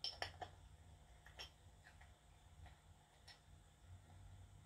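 A few faint, scattered clicks of small metal parts being handled while the solenoid is worked into a car starter motor during reassembly.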